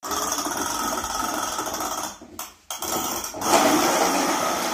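Toy police car whirring as a child pushes it fast across a hard floor, a steady mechanical whirr that dips briefly about two and a half seconds in and picks up again, louder near the end.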